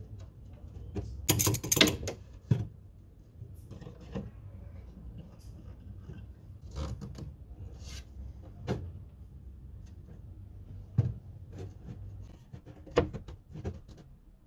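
Scattered knocks, clicks and rubbing as wooden boards and a metal bar clamp are handled and set on a wooden workbench frame, with a louder rustling clatter about a second and a half in.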